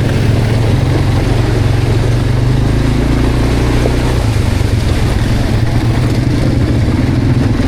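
Quad bike engine running steadily under a noisy rush, its low note shifting about halfway through.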